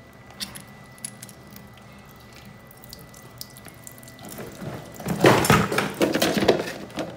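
Water dripping and trickling from a toilet's wall supply shutoff valve, then running and splashing much louder for about two seconds near the end.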